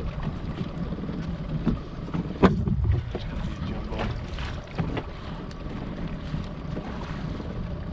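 Fishing boat's outboard motor running steadily at trolling speed, with wind buffeting the microphone. A sharp knock comes about two and a half seconds in.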